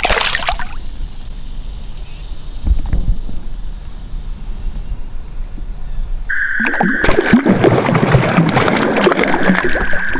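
Crickets chirring steadily in a high, even drone. About six seconds in, this cuts off abruptly and a few seconds of choppy water splashing and gurgling follow.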